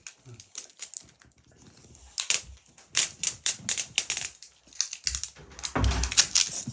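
Toy packaging being handled and pulled open: irregular sharp clicks and crackles in short clusters, with a heavier rustle near the end.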